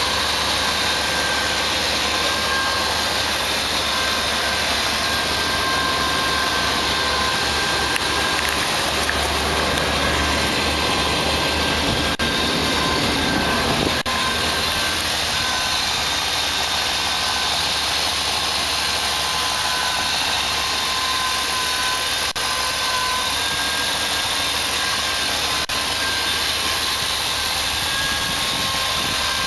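A vehicle engine idling steadily, with an even hiss over it.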